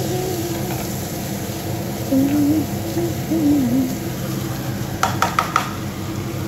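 A spatula stirs and scrapes chickpeas in a kadai on the stove, with a quick run of clinks against the pan about five seconds in. Someone hums two short phrases over it.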